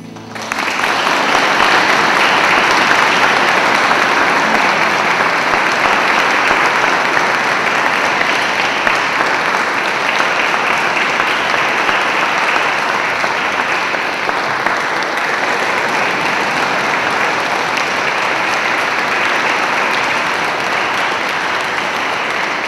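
Audience in a church applauding, starting suddenly just after the last music ends and keeping up a steady clapping that eases slightly over time.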